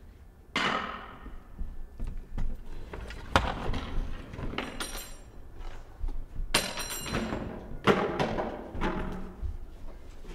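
A run of loud, sharp strikes, five or so, each ringing out bright and fading over about a second.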